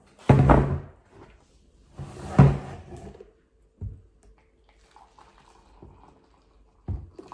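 Stainless-steel electric kettle handled with two loud clunks in the first three seconds, then hot water poured from it into a mug as a faint steady trickle, with another knock near the end.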